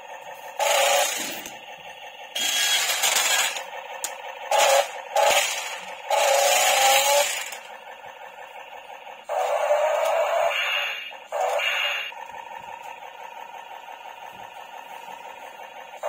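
Small electric gear motors of a remote-control toy forklift whirring in short bursts, about seven times, as it drives and turns on its mecanum-style wheels.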